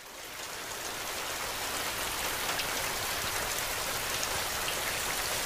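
Heavy rain falling steadily, a dense even hiss of drops, fading in over the first second.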